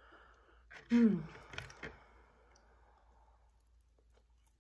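A woman's short voiced sigh about a second in, falling in pitch and trailing off into a breathy exhale, with a few faint mouth clicks.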